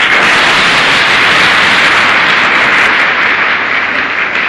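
A seated assembly applauding, dense and steady, the claps merged into one continuous sound with none standing out, heard on an old film soundtrack.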